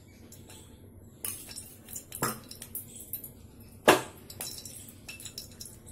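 A metal spoon clinking against a steel bowl and the kadhai as cooking oil is poured and scraped into the pan. There are a few sharp clinks, the loudest about two and four seconds in.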